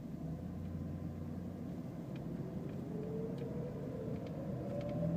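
2010 Jeep Liberty pulling away in first gear: low engine and road rumble with a thin whine that rises in pitch with rpm from about two seconds in. The owner suspects the torque converter or a bearing in the transmission.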